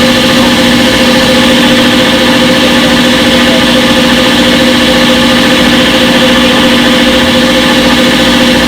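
Front-load washing machine spinning at a steady speed in its spin cycle: a loud, even hum of constant pitch.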